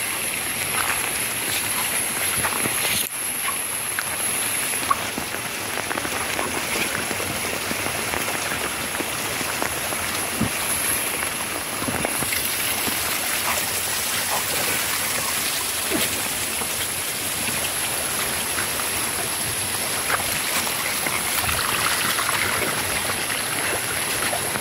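Steady rain and running water, an even hiss, with a thin, high continuous whine above it.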